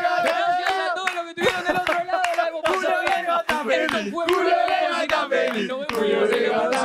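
A group of men chanting together like a football-stand chant, holding long sung notes, with hand claps mixed in.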